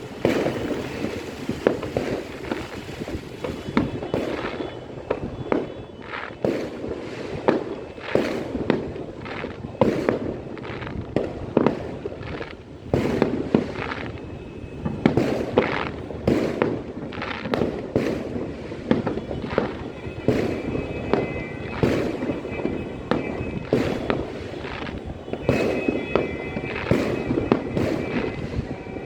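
Fireworks and firecrackers going off all around, a rapid string of sharp bangs and cracks, one after another, over a continuous crackling rumble.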